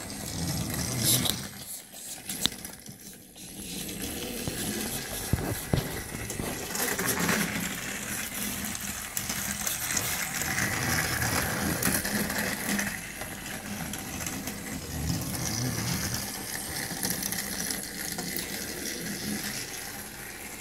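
Battery-powered Thomas & Friends TrackMaster toy train running along plastic track: a steady small-motor whir with plastic rattling, and a few sharp clicks about a second in.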